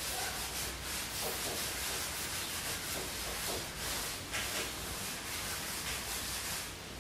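A kitten squirming and rolling on a fleece blanket: an uneven run of rustling, scraping rubs of fur against fabric.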